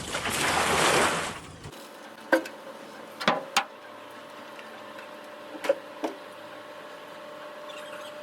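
Workshop noise in a foam-production factory: a loud rushing hiss with a low rumble cuts off suddenly about a second and a half in, then several sharp knocks sound over a steady faint hum.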